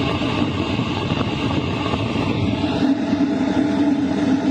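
LF Bros diesel air heater running at full power, 5 kW with combustion at 99%: a steady rush of airflow from the hot-air duct over a constant hum from the blower.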